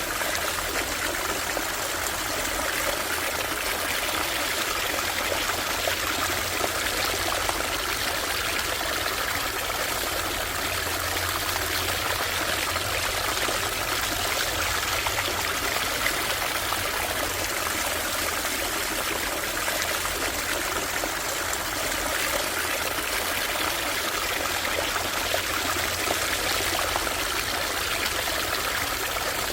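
A small stream running over stones, a steady babbling and trickling of water.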